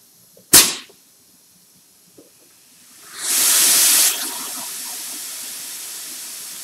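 Compressed air from a shop air hose and tire inflator. There is a short sharp burst of air about half a second in, then a loud hiss for about a second around three seconds in, easing into a steady fainter hiss.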